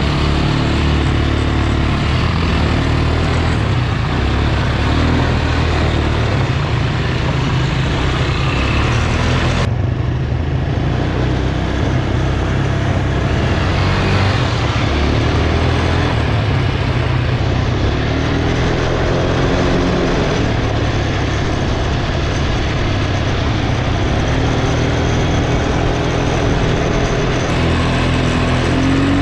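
Quad bike (ATV) engine running under the rider while driving a dirt track, its revs rising and falling again and again. The sound changes abruptly about ten seconds in.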